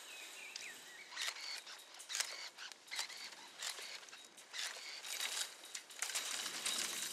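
Dry pruned grapevine canes rustling, scraping and snapping as they are pulled from trellis wires, in many irregular sharp strokes. A few short bird chirps come early on.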